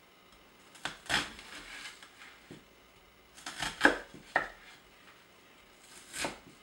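Chef's knife slicing through a red onion and knocking on a wooden cutting board in irregular cuts. There are two knocks about a second in, a cluster of cuts near the middle with the loudest about four seconds in, and one more near the end.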